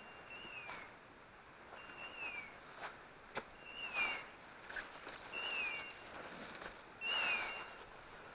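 An English setter's beeper collar repeating its electronic call about every one and a half seconds: a short steady high tone that rises slightly and then falls away, five times. Under it are footsteps crunching through dry leaves and undergrowth, loudest about four seconds in and again about seven seconds in.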